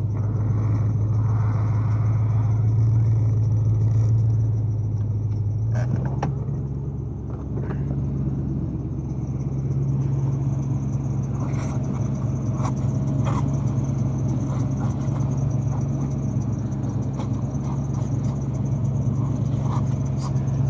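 A steady machine hum, like an engine or motor running, that steps up slightly in pitch about six seconds in, with a few light metallic clicks and knocks now and then.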